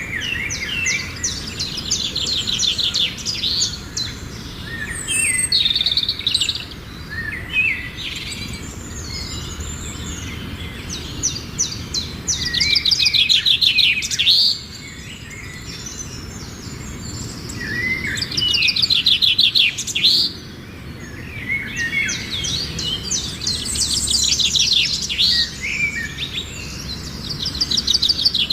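Songbirds singing: a string of fast trilled phrases and high chirps, one phrase after another with short pauses.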